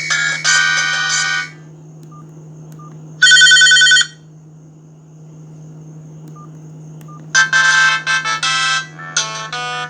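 Sony Ericsson polyphonic ringtones played through a Verykool S135 phone's loudspeaker, over a steady low hum. One melody stops about a second and a half in, a single loud short tone sounds around three seconds in, and faint short beeps come before a new melody starts near the end.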